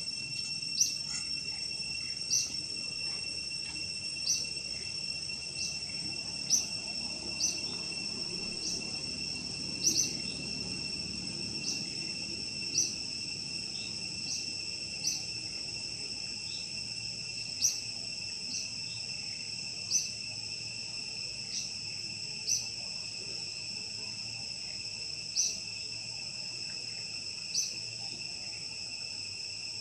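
Forest insects droning steadily in a high, even tone, with a short sharp chirp repeating every second or two.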